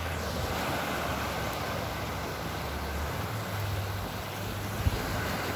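Small waves washing up on a sandy beach, with wind rumbling on the microphone and a brief knock near the end.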